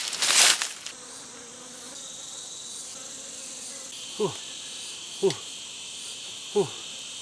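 Forest insects buzzing steadily at a high pitch. A loud noisy burst comes in the first second, and three short calls slide sharply downward in pitch, spaced about a second apart, in the second half.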